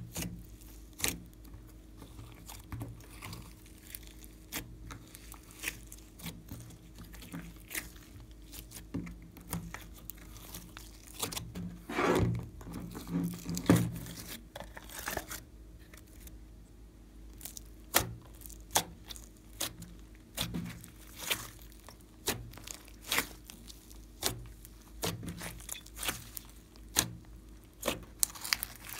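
Glossy slime being kneaded, pressed and stretched by hand, giving irregular sharp sticky clicks and pops. A denser run of crackling comes about twelve seconds in, as the slime is pulled up and peeled away.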